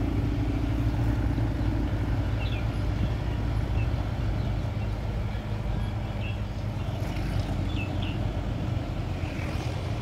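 Vehicle on the move along a road: a steady low rumble of engine and road noise, with a few faint short chirps.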